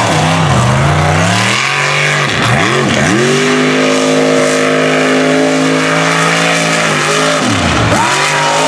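Mega truck's engine at full throttle on a dirt race course. The revs climb, dip sharply twice about two to three seconds in, and hold high and steady for a few seconds. Near the end they fall away and climb again.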